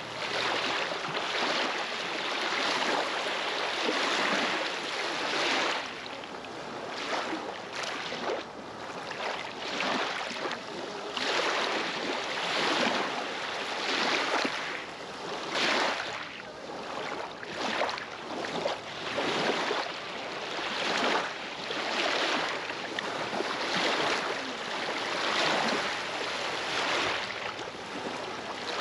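Small lake waves lapping and splashing on the shore right at the microphone: a continuous wash of water that surges irregularly, about once a second.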